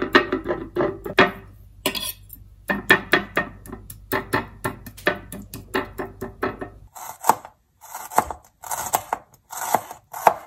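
Background music for the first several seconds, then a kitchen knife slicing shallots on a plastic cutting board: sharp cuts about twice a second.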